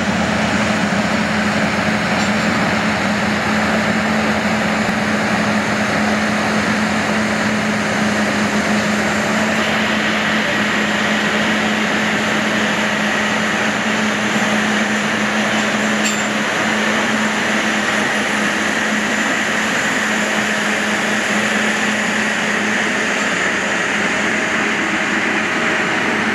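Self-propelled Asa Lift carrot harvester running steadily as it lifts carrots: a dense mechanical noise over a steady low engine hum, its tone shifting slightly about ten seconds in.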